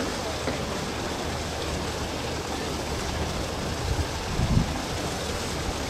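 Outdoor wind noise on the microphone with a steady low hum and a wash of water, and a brief low buffet of wind about four to four and a half seconds in.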